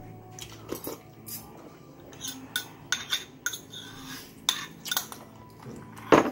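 Metal chopsticks clicking and scraping against a small porcelain bowl while food is picked out of it: a string of light clinks, with one louder knock near the end.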